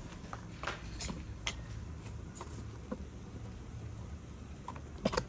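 A few soft, scattered clicks and taps, like handling noise, over a faint low hum of room tone.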